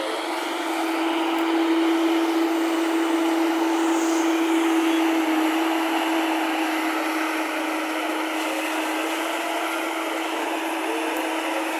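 Steady drone of a JCB crawler excavator's diesel engine and hydraulics at work, a constant hum with a hissing whine over it, a little louder between about two and five seconds in.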